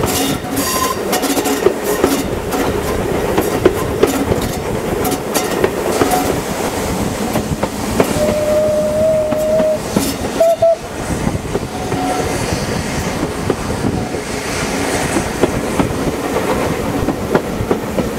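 Steam-hauled passenger train running, heard from an open carriage window, with wheels clicking over the rail joints. About eight seconds in a locomotive whistle sounds one long steady note, followed by a short second blast.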